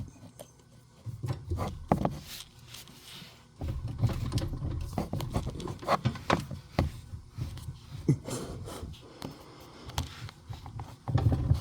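Rubbing and scattered light clicks and knocks from hands wiggling a bolt-in tow-hitch receiver in its snap-in socket, with low rumbling handling noise. The knocking is play in the snap-in joint, which the owner blames on a poorly machined locating dimple.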